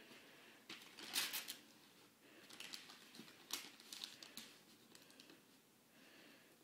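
Wrapping paper crinkling and rustling as a child folds it around a gift box, in faint, scattered short rustles with a louder rustle about a second in.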